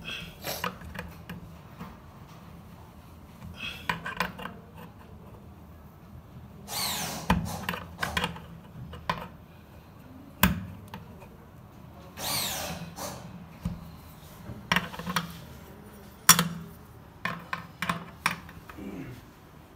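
A metal drain strainer being pressed and twisted by hand into the outlet of a stainless steel sink: intermittent scraping and rubbing of metal on metal, broken by several sharp clicks.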